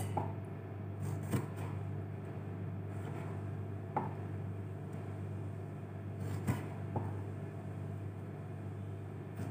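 A few scattered knocks of a kitchen knife and hands on a plastic cutting board, about five in all, over a steady low hum.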